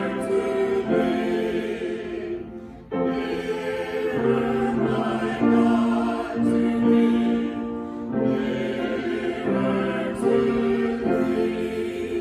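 Slow choral music: voices singing sustained chords in long phrases, with short breaks about three seconds in and again about eight seconds in.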